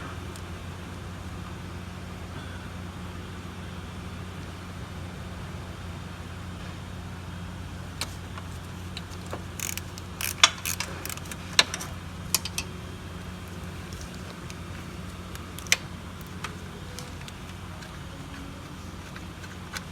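Metal tool clinks as the 10 mm bolts holding the condenser fan are worked loose: a sharp click about eight seconds in, a cluster of clinks around ten to twelve seconds, and another near sixteen seconds, over a steady low hum.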